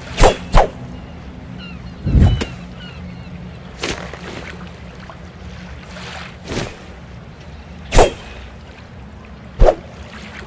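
Folding sword being flicked open and shut: a series of short, sharp swishes and clacks at irregular intervals, with one duller, lower thud about two seconds in.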